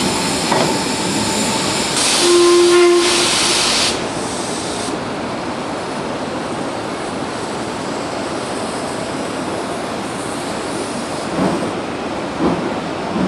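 Steam locomotive letting off a loud hiss of steam for about two seconds, with a short whistle toot about two seconds in. Then a quieter, steady hiss and rumble as a BR Ivatt Class 2 2-6-0 drifts slowly forward with steam escaping at its cylinders.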